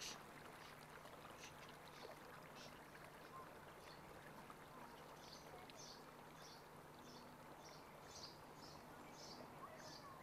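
Faint outdoor ambience: a low steady hum and soft hiss, with short high chirps that fall into a regular run of about two to three a second from about halfway through.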